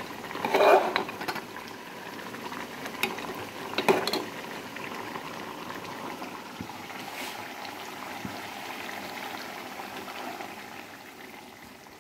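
Food bubbling in an aluminium pot on a gas burner, with a metal ladle scraping and knocking against the pot about half a second in and again around four seconds; after that the steady bubbling goes on alone.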